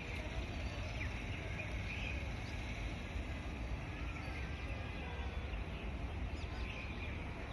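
A steady low rumble, with birds chirping now and then over it.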